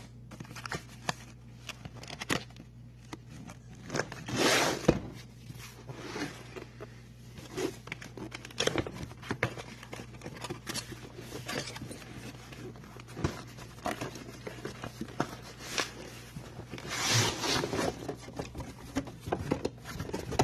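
A cardboard power-tool box being cut open with a knife and unpacked: cardboard and packaging tearing, rustling and scraping, with scattered clicks and knocks. Two louder stretches of tearing and rustling come about four seconds in and about seventeen seconds in, over a steady low hum.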